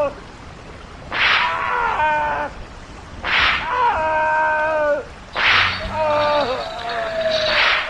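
Whip lashes, four of them about two seconds apart, each a sharp swishing crack followed by a short pitched cry that falls away in pitch at its end.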